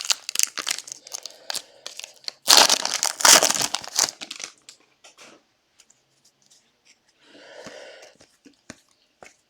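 Foil wrapper of a trading card pack being torn open and crinkled, loudest in a burst of tearing from about two and a half to four seconds in. After that come only a few small clicks as the cards are handled.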